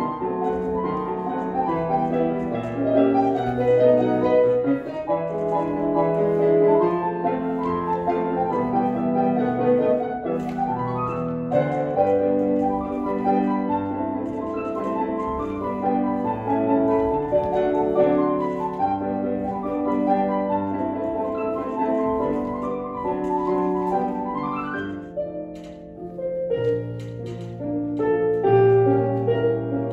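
Piano music accompanying a ballet barre exercise, playing continuously, with two quick rising runs up the keyboard, about a third of the way in and again near the end.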